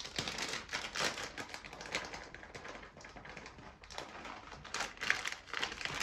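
Paper treat bag rustling and crinkling as it is handled and a hand digs into it, a quick irregular run of crackles.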